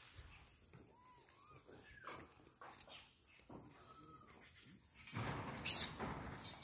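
Steady high chirring of insects, with a few short arching animal calls in the first few seconds. About five seconds in comes a burst of rustling noise with one sharp crack.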